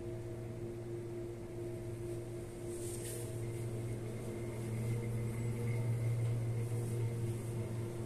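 Steady low mechanical hum with a few held tones, growing slightly louder past the middle, with a brief faint hiss about three seconds in.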